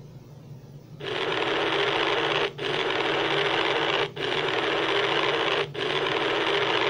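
Harsh electric buzzing sound effect: four long buzzes of about a second and a half each, separated by brief breaks, starting about a second in.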